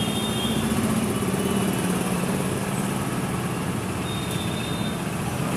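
A motor vehicle engine idling steadily, with street traffic noise around it.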